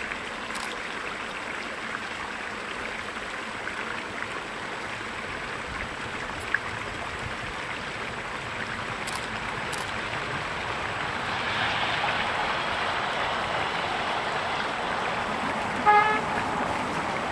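Distant narrow-gauge train running past over a steady rushing background that swells about two-thirds of the way through. Near the end its diesel locomotive gives one short horn toot.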